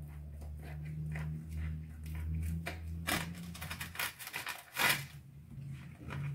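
A low steady hum with scattered light clicks and taps, the sharpest about five seconds in.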